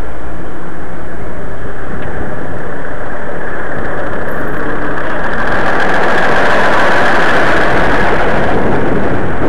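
Steady rushing of wind and road noise on the microphone of a camera riding on a moving bicycle, growing louder about halfway through.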